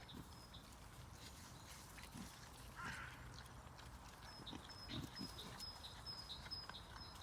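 Wild boar snoring faintly, with a few short low breathing sounds. A small bird calls in the background with a run of short high chirps, about two a second, in the second half.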